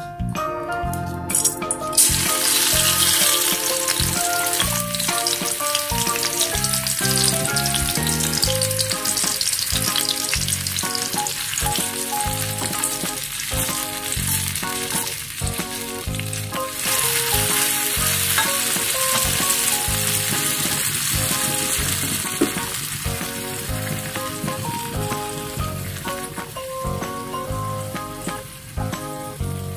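Food sizzling as it fries in a miniature wok. The sizzle starts about two seconds in and eases off near the end, with background music playing under it.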